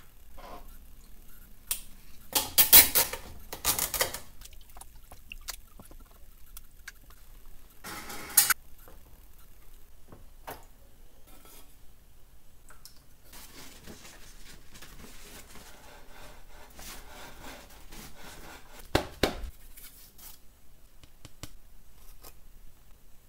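Plastic tongs and a copper-clad circuit board clattering and knocking against plastic etching trays while the board is lifted out and set down. There is a burst of knocks a few seconds in, a short rattle about a third of the way through and another knock later, with quieter handling noise between.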